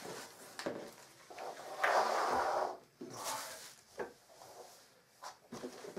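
Cardboard box and its packed wooden play-gym parts being handled during unpacking: a scraping slide about two seconds in, a shorter rustle soon after, and a few light knocks.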